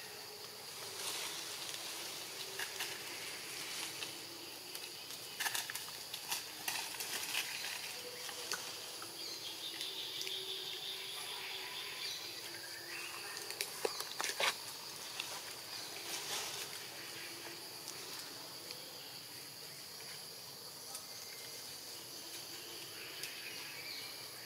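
Forest ambience with a steady high insect drone. A few short crackles and clicks like twigs and dry leaves stirring sound over it, the loudest about two-thirds of the way through.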